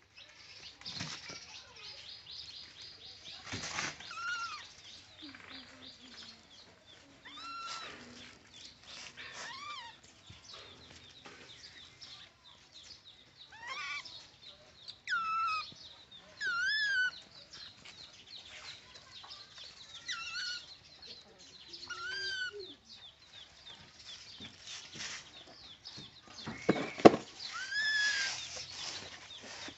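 Baby monkeys giving short, arching squeaky calls every second or two, over the rustle and rattle of a woven bamboo basket being pushed and tipped on the ground, with one loud knock near the end.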